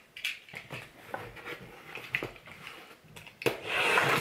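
Faint handling knocks and rustles, then near the end a sharp thump and a brief loud scrape as a cardboard mailer box is set down and slid on a tabletop.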